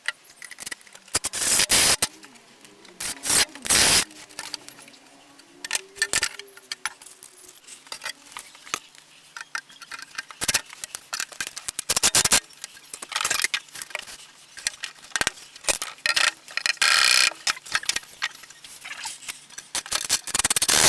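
Workshop handling sounds: a string of knocks, clicks, clatters and scrapes as wooden pieces, screws and tools are handled, coming in short, irregular bursts.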